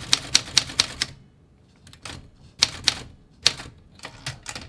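Olympia SM9 manual typewriter being typed on: a quick run of key strikes in the first second, a short pause, then slower, scattered strikes.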